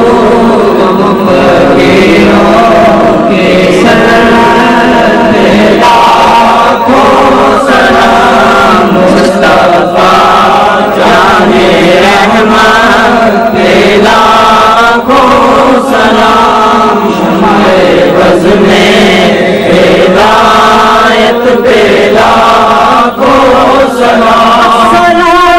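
Loud group of male voices chanting a devotional Urdu Salam, a sung salutation to the Prophet, in a continuous melodic recitation.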